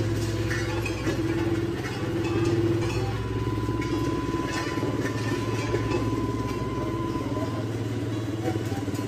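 An engine running steadily, with metal rakes scraping and scratching over fresh hot-mix asphalt as it is spread by hand.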